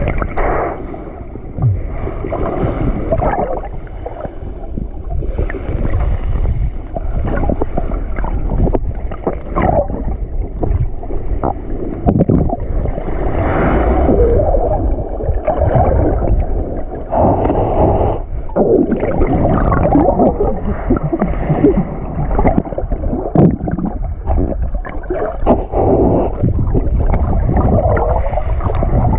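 Muffled underwater noise picked up by a camera held underwater: a steady low rumble of water moving around it, with irregular gurgling and bubbling.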